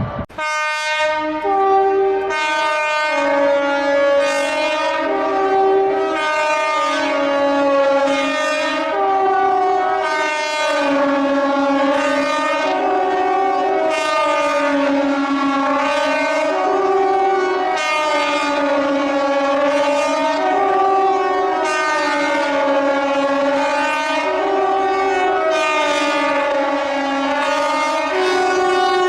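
Emergency alert tone: a loud, buzzy horn-like tone that starts abruptly and steps through a repeating pattern of two or three notes, changing about once a second without a break.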